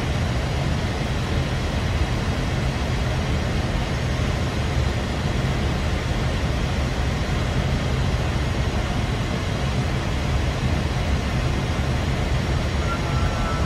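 Steady flight-deck noise of an Airbus A320 in flight on approach: an even rushing hum of airflow and engines, heaviest in the low end, with no breaks.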